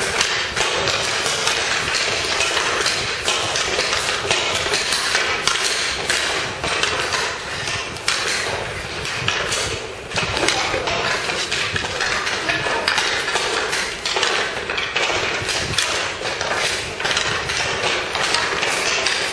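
Hockey practice: many sharp, irregular clacks of sticks and pucks over a steady scraping hiss.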